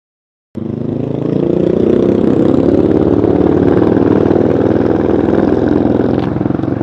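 Yamaha Scorpio 225 motorcycle's single-cylinder four-stroke engine running. The sound cuts in abruptly about half a second in and then holds steady, rising slightly in pitch over the next second.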